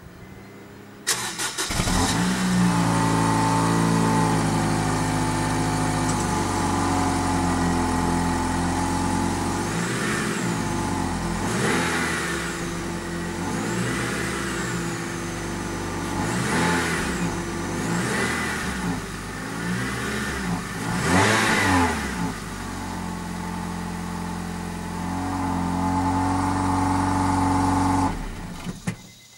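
A Honda Civic FK2's 1.8 i-VTEC four-cylinder engine (R18A2) heard at the stock exhaust tailpipe. It starts about a second in and idles steadily, then is revved in about seven short throttle blips, each rising and falling. It settles back to idle and is switched off near the end.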